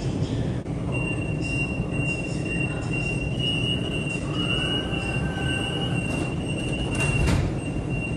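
Metro car's door-closing warning tone: a steady high tone sounding for about seven seconds from about a second in, over the stopped train's low, steady hum. A brief knock comes near the end as the doors shut.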